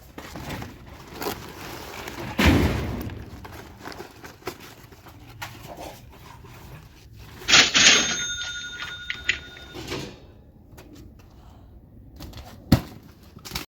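Things being handled and shifted, with a heavy thump a couple of seconds in and a sharp knock near the end. In the middle comes a bright ringing chime that lasts about two seconds, like a cash-register ka-ching sound effect.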